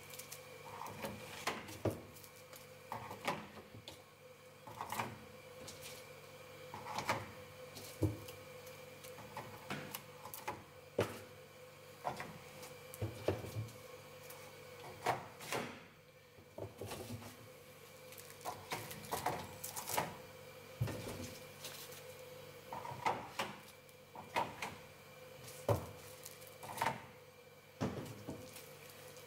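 Small cardboard boxes being handled and set down on the sloped chutes of an automated dispenser's loading station: irregular light knocks, taps and clatter every second or two, over a steady hum.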